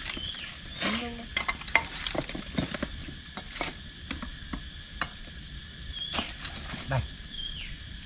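Wood fire crackling with irregular sharp pops and snaps, over a steady high chirring of crickets.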